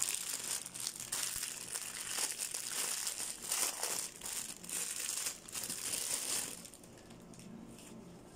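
Clear plastic packaging bag crinkling and rustling in the hands as it is opened and a brown belt is pulled out. The crinkling is irregular and stops about two-thirds of the way through, leaving it quiet.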